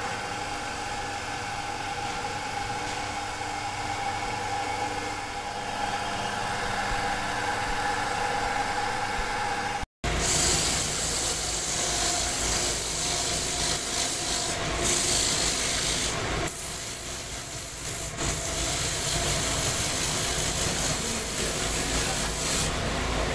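A belt-driven wood lathe runs with a steady hum. About ten seconds in, a hand-held turning chisel starts cutting the inside of the spinning wooden pot, a loud continuous scraping hiss that eases off briefly a few times.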